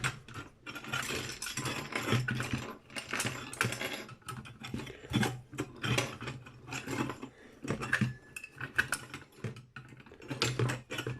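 Hand tools clicking and metal parts clattering as a brass light fitting with rusted bolts is worked apart. The clicks come in quick, irregular bursts.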